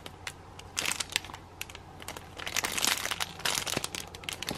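Clear plastic bags around squishy toys crinkling as they are handled. The rustling comes in irregular bursts, one short one about a second in and a busier stretch in the second half.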